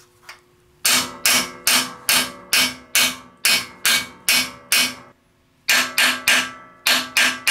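Hammer tapping a steel drift held on a loose valve seat in a Briggs & Stratton side-valve engine block, driving the seat back in. The steady taps come about two and a half a second, each with a brief metallic ring, with two short pauses about five and six and a half seconds in.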